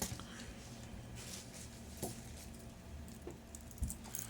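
Faint rustling of packaging with a few light clicks and taps as watches are handled and set down, and a soft low thump near the end.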